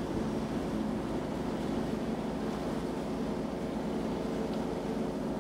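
The lake freighter ALGORAIL's diesel engine running steadily while the ship lies stopped in the lock. It is a low, even hum with a few steady tones over it.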